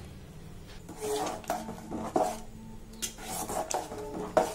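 A steel spoon scraping in a series of short strokes against a tea strainer and an aluminium pot as jaggery syrup is strained into cooked rice and stirred in.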